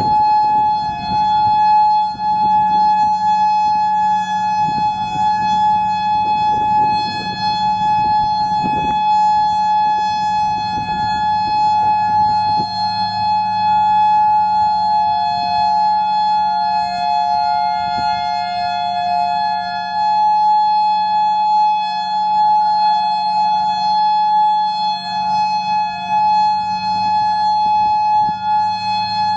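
Federal Signal Modulator 5020B storm siren sounding a steady alert tone: one high held pitch with overtones. Other outdoor warning sirens mix in, one slightly lower in pitch that wavers in and out.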